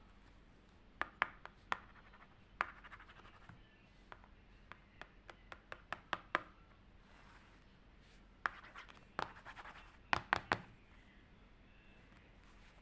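Paper craft pieces handled close to the microphone: scattered light taps and clicks of paper and card, with a few short stretches of scratchy rubbing.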